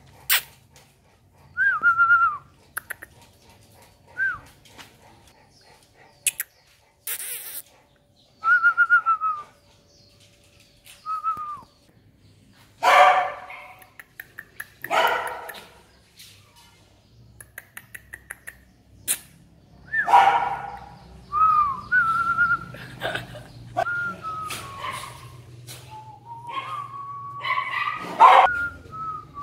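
Dogs in kennel cages barking a handful of times, mostly in the second half. Between the barks come many short, high whistle-like notes that dip in pitch, and a few sharp clicks.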